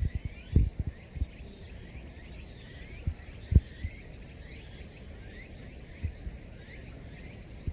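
Short, high rising chirps repeat steadily over a pulsing high-pitched hiss of outdoor wildlife, broken by several low thumps on the microphone, the loudest two about three and a half seconds in.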